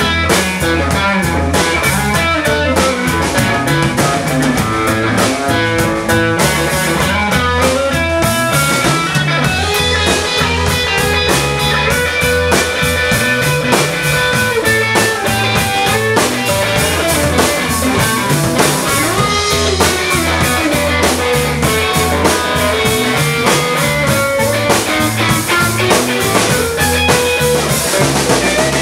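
Live blues played by an electric guitar, electric bass and drum kit: the guitar carries a melodic line with notes that bend up and down over a steady drum beat.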